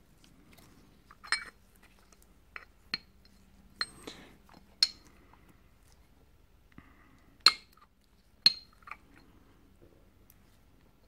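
Scattered sharp metallic clicks and clinks, about nine in all and the loudest two about two-thirds of the way through, as a metal brake piston is worked against the bore of a Yamaha TDR250 rear brake caliper. The piston will not go in past a replacement dust seal that stands too proud in the bore.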